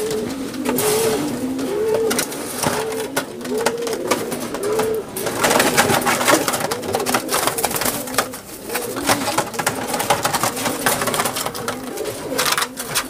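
Domestic pigeons cooing, a repeated rising-and-falling coo about once a second. From about five seconds in, a dense run of rustling and clattering as a pigeon is handled in a wire cage.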